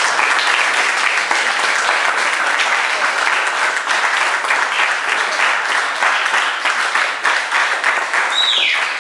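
Audience applauding with dense, steady clapping. Near the end a single high sound slides down in pitch over the clapping.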